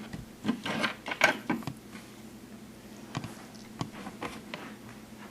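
Small plastic toy parts being handled and worked open by hand: a flurry of clicks and rustling from about half a second in, then a few separate sharp clicks.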